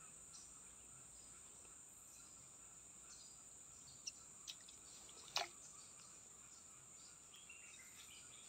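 Near silence with a faint, steady, high-pitched drone of forest insects, broken by a few soft clicks, the sharpest about five seconds in.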